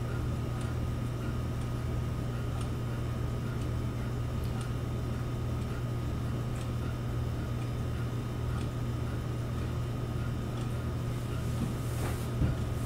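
Steady low machine hum with a thin high whine above it and faint ticks about once a second, with a single louder click near the end.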